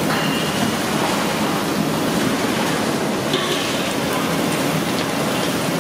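Steady sizzling hiss from onions, green chillies and dried red chillies frying in hot oil in a large kadai over a gas burner, as salt is sprinkled in.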